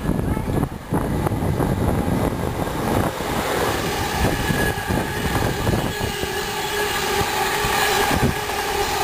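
GNER express passenger train passing close by, its coaches rumbling over the rails. The noise grows fuller about three seconds in as the coaches come alongside, and a steady hum joins it about six seconds in.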